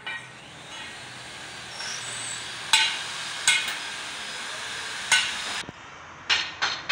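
Sharp metallic taps and clinks at uneven intervals, about half a dozen in all, over a steady background hiss.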